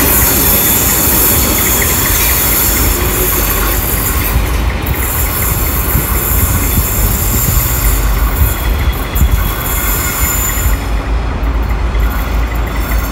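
Train wheels squealing on a curved track with a low rolling rumble as the stainless-steel carriages of the AK train move away; the high squeal thins out near the end.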